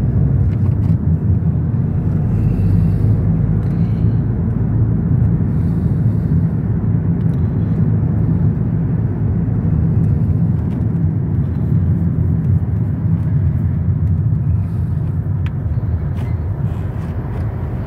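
Steady low rumble of a car driving at dual-carriageway speed, heard from inside the cabin: road and engine noise with no change in pace, easing slightly near the end.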